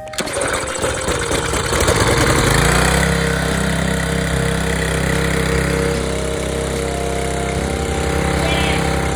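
Briggs and Stratton single-cylinder engine on a pressure washer starting up, its pitch rising over the first few seconds before it settles into a steady run.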